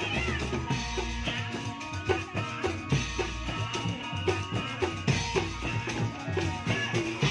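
Indramayu reog music with drums beating a busy, steady rhythm, the drum notes bending in pitch, over held instrumental tones.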